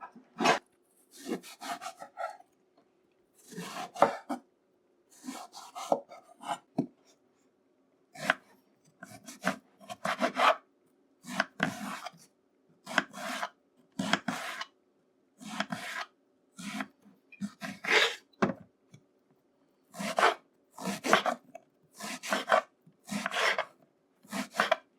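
An eggplant being peeled with a blade: short rasping strokes, roughly one a second.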